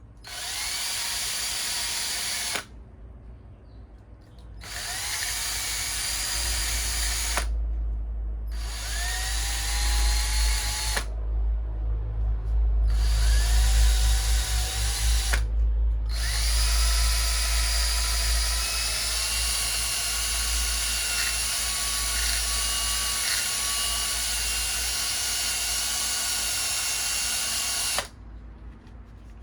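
Drill spinning a fine wire wheel brush against faded black plastic, scrubbing it back to black. It runs in four short bursts of two to three seconds, then one long run of about twelve seconds, each rising in pitch as the motor spins up.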